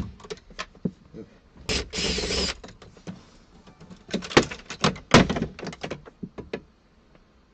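Clicks and knocks of car interior parts and hand tools being handled during dismantling, with a short burst of steady noise about two seconds in and a dense run of knocks a couple of seconds later.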